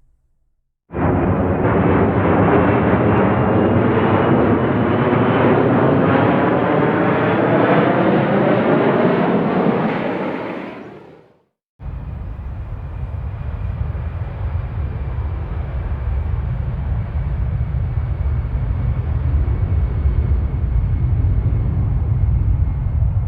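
A jet airplane passing close by, loud, with a rising engine whine; it fades out about halfway through. After a brief gap comes a steady low rumble of jet engines with a faint high whine.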